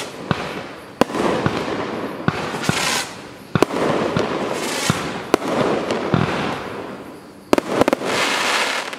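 Celtic Fireworks 'More Tea Vicar' 61-shot firework cake firing: sharp launch thumps about once a second, each followed by the fizzing crackle of the bursting stars. Near the end a quick volley of several shots goes off, and its crackle stops abruptly.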